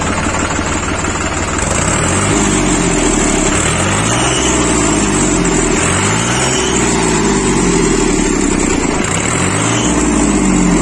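New Holland 3630 TX Plus tractor's three-cylinder diesel engine idling, then revved up and back down several times from about two seconds in, each rev a rising then falling pitch.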